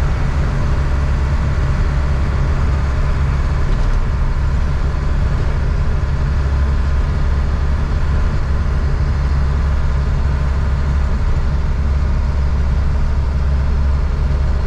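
Diesel truck engine running, heard from inside the cab as a steady, loud low drone with road noise.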